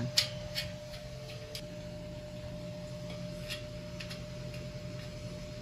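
Light metallic clicks of small screws and metal frame parts being handled and fitted by hand, several in the first second and a half and a couple more later, over a steady low hum.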